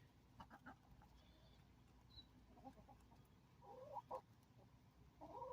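Laying hens clucking faintly, a few short calls, strongest around the middle and towards the end, with a few light taps about half a second in.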